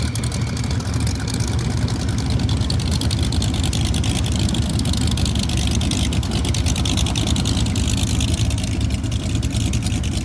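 Several motorcycle engines idling together, a steady low-pitched running sound that holds level without breaks.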